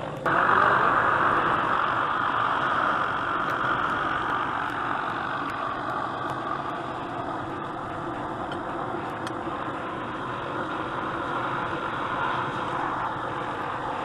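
Utility bucket truck's engine running steadily while the boom is worked, cutting in loud just after the start and then easing off a little.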